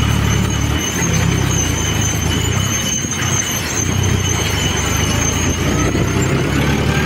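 John Deere tractor's diesel engine running as its front-loader bucket is pushed into a pile of crusher dust and lifted, with a steady high-pitched squeal over it.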